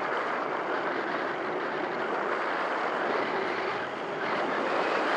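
Air rushing past the onboard camera of an EasyGlider Pro RC glider in flight: a steady wind noise that dips briefly about four seconds in, then swells again.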